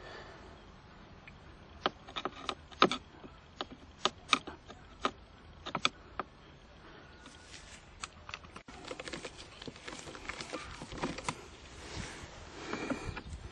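Screws being unscrewed and the plastic console trim being handled: a string of sharp separate clicks, then a faster run of small ticks and rattles from about seven seconds in.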